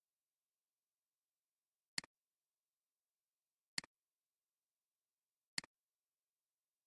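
Computer mouse clicks: three single clicks about two seconds apart, each a quick press and release.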